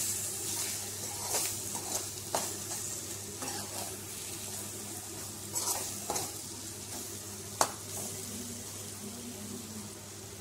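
Egg and tomato-onion masala sizzling in a non-stick kadai while a spatula stirs through it. Short scrapes and taps of the spatula against the pan come every second or two, the sharpest about two-thirds of the way through.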